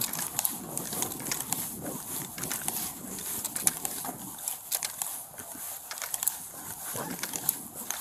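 Footsteps on a concrete sidewalk, with gear clicking and rubbing against a chest-worn police body camera: many short, irregular knocks over a light hiss.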